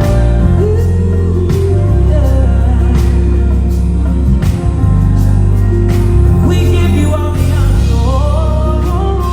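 Live gospel music: singers over a band with a prominent Fender Jazz electric bass holding long low notes and regular drum hits. The vocal line rises in the second half.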